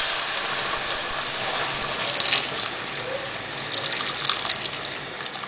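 Water pouring steadily from a kettle into a cast-iron casserole pot, a gushing stream that grows gradually quieter as the pot fills.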